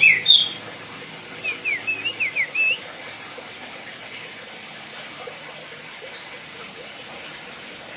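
White-bellied bushchat singing: the tail of a burst of song at the start, then a phrase of quick falling whistled notes about two seconds in, over a steady background hiss.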